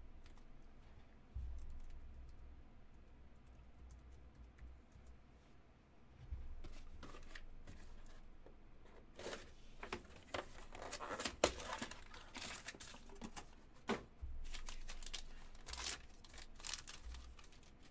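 Plastic wrapping crinkling and tearing as trading cards are unwrapped and handled, with scattered clicks and a few dull thumps on the table.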